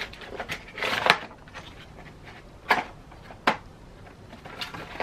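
A black cardboard flip-top jewelry box being opened and handled: paper-like rustling with two sharp clicks and taps of the lid and flaps.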